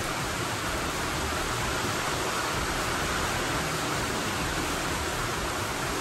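Rain falling steadily on the barn roof in a thunderstorm, an even hiss with no breaks.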